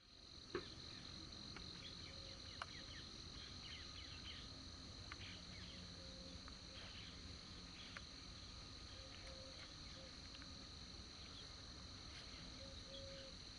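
Faint, steady chorus of insects in the fields, a continuous high-pitched hum with scattered short chirps over it. Two sharp clicks stand out in the first few seconds.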